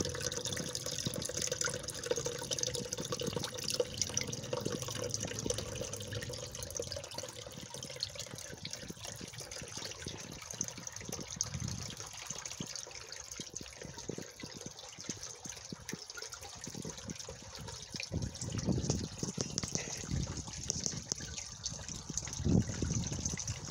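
Small garden rock fountain: thin streams of water trickling off mossy rock and splashing steadily into its pool.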